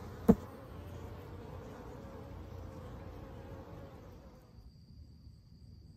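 Honey bees buzzing at a hive entrance, a steady hum, with one sharp click a third of a second in as the loudest sound. The buzzing drops away after about four and a half seconds, leaving only a faint, thin high-pitched tone.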